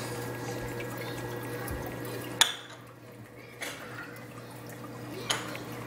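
Water running and bubbling in a saltwater reef aquarium, with a steady low hum underneath. A few sharp clicks cut through, the loudest a little over two seconds in.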